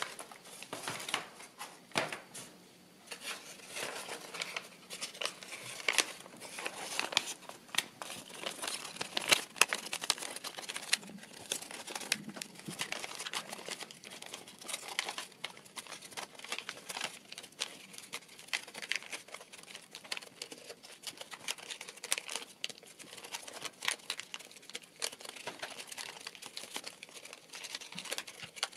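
Kraft paper being folded and pressed by hand into an accordion, giving irregular crackling and rustling with sharp crinkles as the creases are worked.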